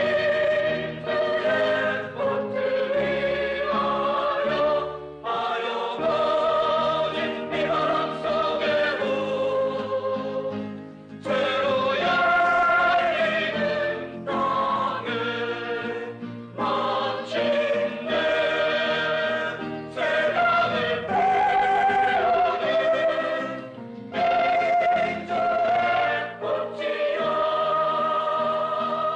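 A student song group singing a Korean minjung protest song in chorus, closing on a long held chord.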